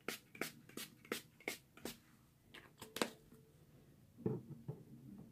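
Makeup setting spray pumped onto the face: quick short hisses of fine mist, about six in a row roughly a third of a second apart, then two more a second or so later.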